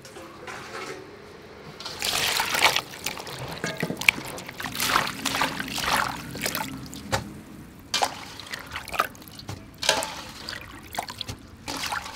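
Hands swishing and rubbing cauliflower florets in a metal basin of water, with repeated irregular splashes and trickles. The washing starts in earnest about two seconds in.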